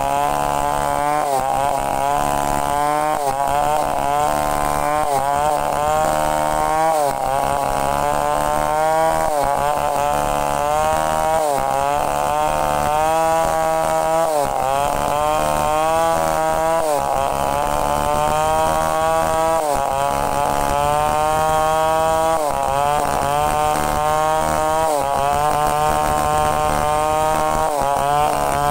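Two-stroke chainsaw running at full throttle, ripping a breadfruit log lengthwise into planks. The engine pitch sags under load as the chain bites and picks up again about every two to three seconds.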